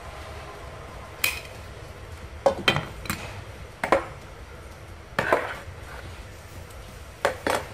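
Glass pot lid being set onto a stainless steel pot: a series of separate sharp clinks and knocks of glass on metal, some ringing briefly.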